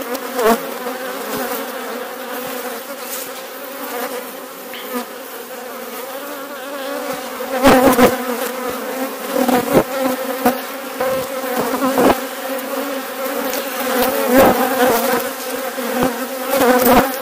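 Steady droning hum of a crowded honeybee colony on a brood frame lifted out of an open hive. A few brief thumps sound over it, the strongest about eight seconds in.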